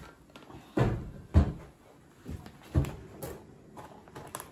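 Cast-iron washing-machine bearing holder (spider) being turned over and set down on a wooden board: a few dull thumps, the loudest about a second and a half in.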